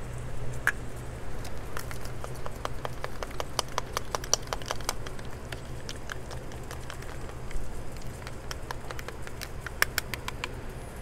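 A utensil clicking irregularly against a bowl as a mayonnaise-based garlic mustard aioli is stirred together, over a steady low hum.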